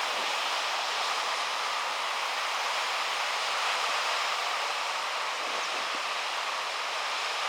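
Steady rushing hiss of sea surf and moving water, even throughout with no distinct events.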